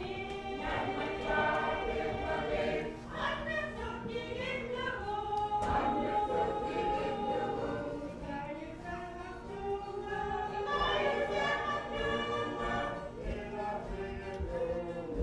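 A church choir of men's and women's voices singing a gospel hymn translated into Inupiaq, in phrases of held notes.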